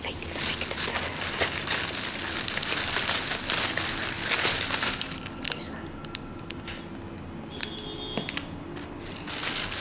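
Black plastic carrier bag crinkling and rustling as a hand rummages through it. It is loudest for the first five seconds, quieter for a few seconds after that, and loud again near the end.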